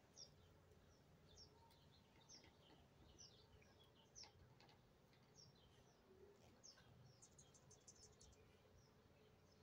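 Faint birds chirping: short, high, falling chirps repeated about once or twice a second, with a quick run of rapid very high notes about three quarters of the way through.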